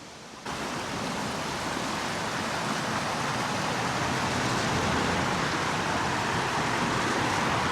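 Steady rushing roar of a waterfall pouring down rocks, cutting in abruptly about half a second in and swelling slightly.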